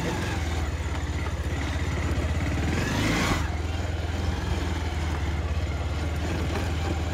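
Motorcycle engine running steadily at low speed, pulsing evenly, with a brief rush of noise about three seconds in.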